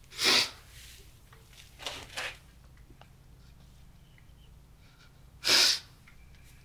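A man sniffing hard through his nose: two loud, sharp sniffs about five seconds apart, with two shorter, softer sniffs between them.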